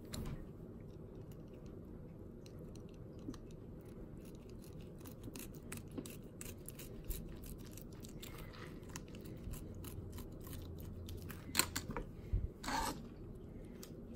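Box cutter blade slicing through a rock bass's scales and skin, a run of small crunching, crackling clicks, with a few louder ones near the end.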